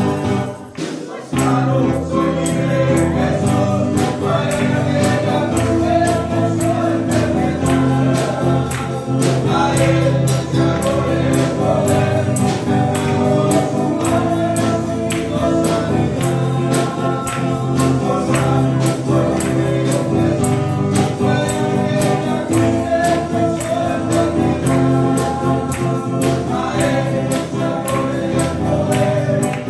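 Spanish-language gospel worship song: a man singing into a microphone over music with choir voices and a steady tambourine-like beat. The music briefly drops off about a second in.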